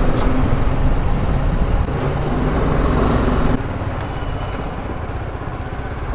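BMW G 310 GS motorcycle's single-cylinder engine running as the bike is ridden, with heavy low rumble; the level drops suddenly about three and a half seconds in.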